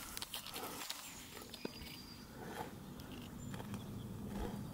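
Cattle grazing close by, tearing and cropping grass in scattered crisp crunches a second or so apart.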